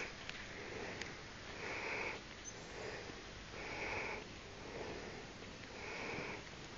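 Soft, even breathing close to the microphone, a breath about every second.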